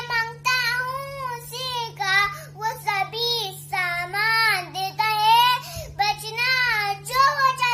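A young girl's high voice singing in rising and falling phrases with short breaths between them, over a faint steady low hum.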